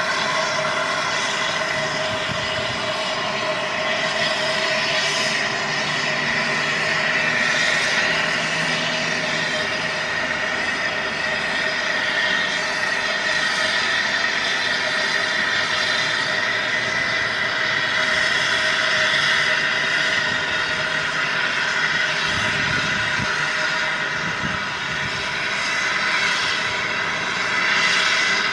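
LNER A1 Peppercorn Pacific steam locomotive 60163 Tornado making a loud, steady roar of steam with several held tones, one high tone the strongest, and no separate exhaust beats.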